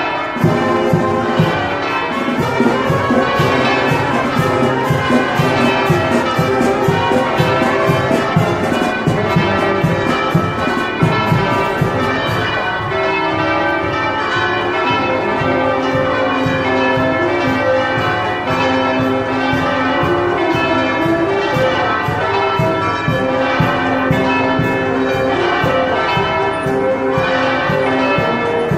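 Church bells pealing, many overlapping strokes ringing on one over another. The strokes come thickest in about the first dozen seconds, then thin out while the tones keep ringing.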